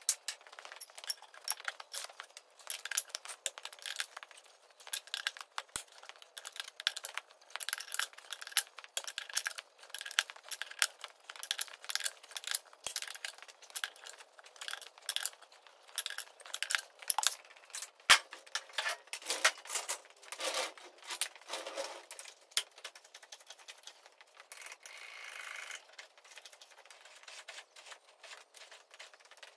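Ratchet wrench clicking in quick irregular runs while the tractor's front wheel nuts are done up, with light metallic clinks and rattles. A short steady hiss a few seconds before the end.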